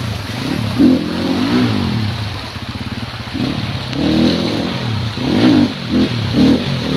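Enduro dirt bike engine revving up and down again and again as it is ridden through a shallow rocky stream, with water splashing around the wheels.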